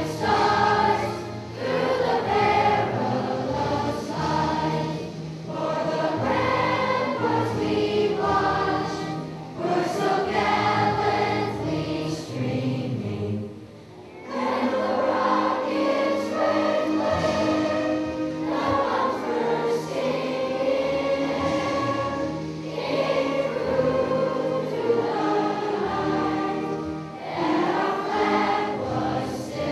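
A children's choir singing together, phrase after phrase, with a short pause for breath about fourteen seconds in.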